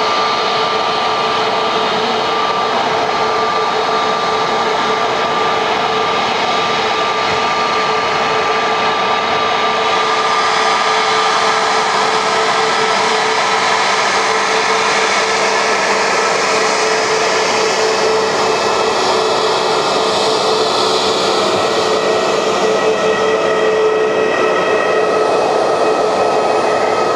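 Airliner's jet engines running at taxi power: a steady whine of several held tones over a rushing hiss.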